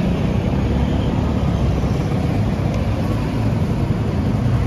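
Steady low rumble of road traffic passing the street stall.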